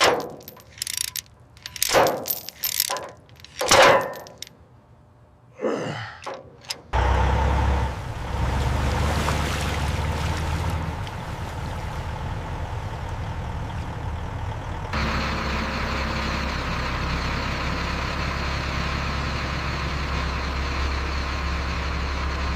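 A run of sharp metallic knocks and clanks, then a vehicle engine starts running steadily with a deep low hum about seven seconds in, growing a little louder about halfway through.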